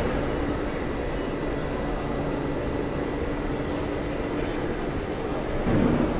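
PrestoMarine L200F boat lift's drive running steadily with a hum and hiss as it raises a jet ski on its cradle arms, with a brief louder low rumble near the end.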